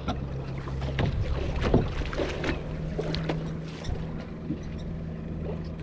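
Small fishing boat on the water, its motor humming steadily at a low pitch while water splashes along the hull, with irregular knocks and some wind on the microphone.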